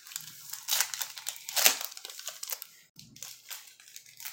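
Plastic wrapper of a trading-card pack crinkling as it is torn open and handled, in a run of irregular crackles with the loudest about one and a half seconds in.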